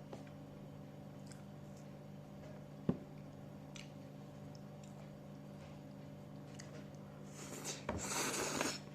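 Close-up eating sounds, mostly quiet over a steady low hum, with one sharp click about three seconds in and a louder, noisy burst of about a second near the end.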